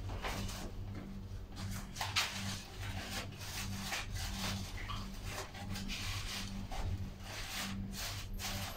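Rustling and scraping of artificial hydrangea stems being pushed into floral foam and brushing against paper flowers, in irregular strokes, over a low steady hum.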